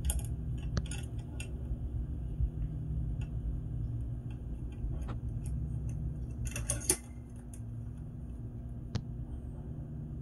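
Small metallic clicks and rattles from a Hatsan 150 Torpedo .177 spring air rifle being handled and readied to shoot, with a denser cluster of clicks about six and a half seconds in, over a steady low rumble.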